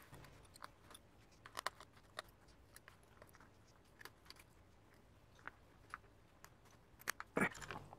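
Precision screwdriver working the small screws of an iPhone XR logic board: faint, scattered metal clicks and ticks, with a louder cluster of clicks about seven seconds in.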